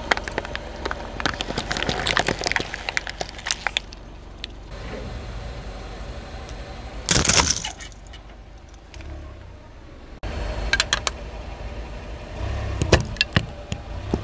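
Car tyre rolling over plastic toys and other objects and crushing them: bursts of cracking and crunching over the low rumble of the idling car, with a loud short burst about seven seconds in.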